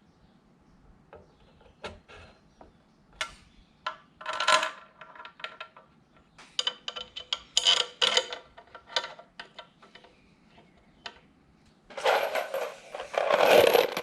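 Scattered metal clicks and clinks of small bolts being handled and started by hand into an engine's front timing cover, with a louder, denser clatter over the last two seconds.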